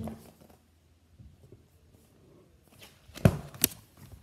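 Picture-book pages rustling as they are handled and turned, with two sharp knocks a little over three seconds in.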